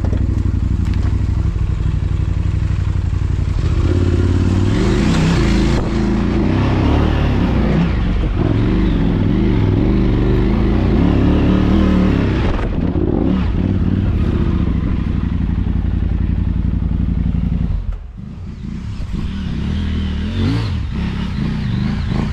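Motorcycle engine running while under way, its pitch shifting with the throttle. It drops off briefly about eighteen seconds in, then picks up again.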